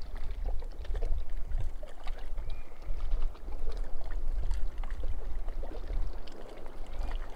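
Lake water lapping and splashing against a small fishing boat's hull, with scattered small slaps and a low, uneven rumble of wind on the microphone.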